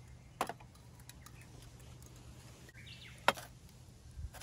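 Camp cookware being handled on a tabletop as a metal kettle is lifted off a gas stove and set down: two sharp knocks, one about half a second in and a louder one about three seconds in, with a few light ticks between.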